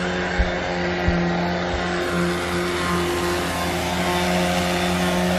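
Electric sander running at a steady speed with a constant mid-pitched hum, used to sand down the deck where the old SeaDek came off. A few soft thumps come in the first two seconds.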